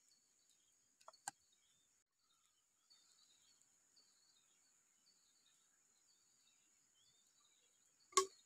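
A steady high insect drone with faint bird chirps, broken by two light clicks about a second in. Near the end comes one sharper, louder knock of a bamboo tube being handled against the ground.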